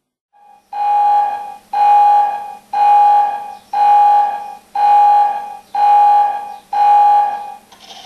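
Electronic alarm beeping: seven long, steady beeps at one pitch, about one a second, after a short blip at the start.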